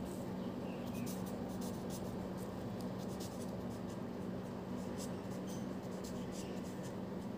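Felt-tip marker writing letters on paper: a run of short, irregular scratches of the tip as each stroke is drawn, over a steady low hum.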